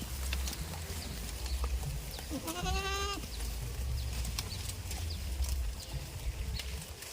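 A goat bleats once, about two and a half seconds in: a single quavering call under a second long, over a steady low rumble.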